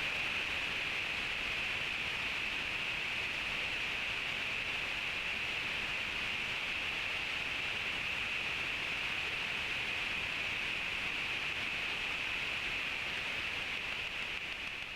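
Steady hiss of electronic noise, brightest in a high band, holding level after a sudden start and beginning to fade near the end.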